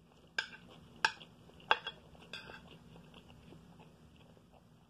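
Metal spoon clinking against a plate while scooping fried rice: three sharp clinks about two-thirds of a second apart, then a softer scrape.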